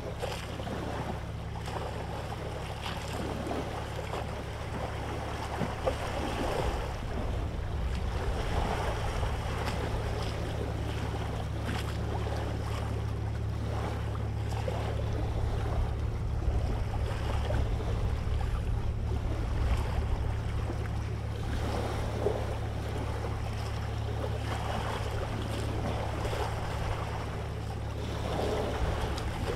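Steady low drone of a boat engine under a rushing wash of wind and sea.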